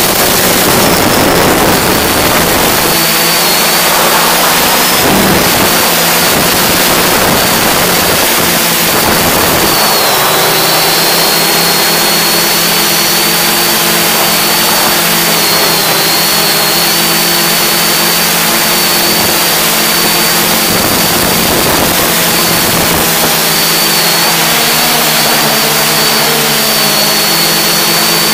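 The electric motors and six propellers of an S550 hexacopter running steadily in flight, heard from the camera mounted on the craft: a steady hum with a high whine that dips slightly now and then, over a broad rush of air.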